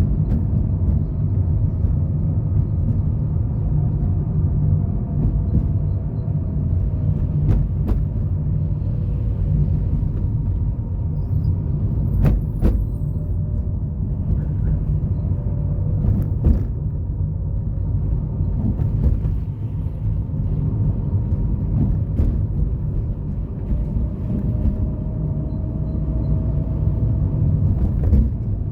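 Street traffic: a steady low rumble of car engines and tyres, with faint engine tones rising and falling as vehicles pass and a few short clicks.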